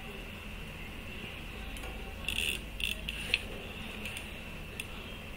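A few light metallic clicks and clatters from small repair tools being handled, a cluster of them a little past two seconds in and one more tick near the end, over a steady hum with a faint high whine.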